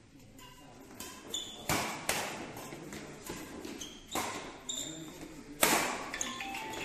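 Badminton rally: several sharp smacks of racquets striking the shuttlecock, the loudest about five and a half seconds in, with short high squeaks of shoes on the synthetic court mat between them.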